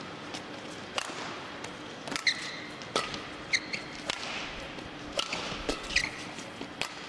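Badminton rally: sharp cracks of rackets striking the shuttlecock about once a second, mixed with short high squeaks of court shoes on the mat, over a low hum of the arena crowd.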